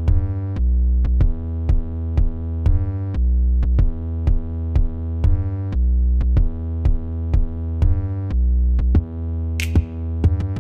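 Electronic background music: a drum-machine beat at about two hits a second over deep bass and synthesizer chords.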